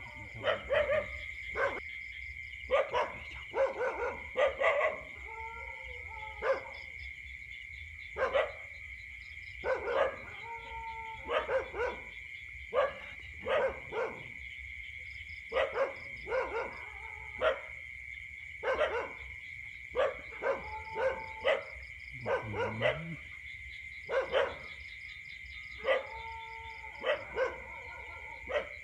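Short barking animal calls, in ones and twos every second or two, over a continuous high-pitched drone of night insects.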